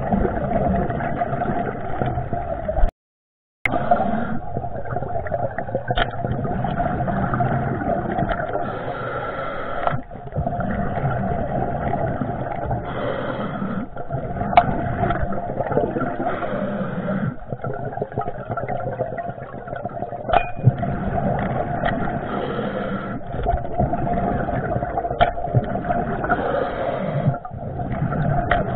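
Muffled underwater noise through a waterproof camera housing, steady with a low hum, broken by a few sharp clicks and knocks as spearfishing gear is handled. The sound cuts out completely for about half a second about three seconds in.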